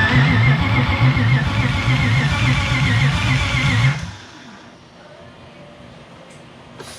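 BMW engine being cranked by its starter with the throttle held wide open: it turns over in an even rhythm of about three to four strokes a second under a steady starter whine, for about four seconds, then stops suddenly without catching. The engine cranks but does not fire, and the crew suspect it is getting no fuel.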